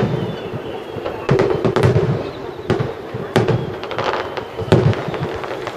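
Aerial firework shells bursting one after another, with sharp booms about one or two a second, each trailing off in an echo.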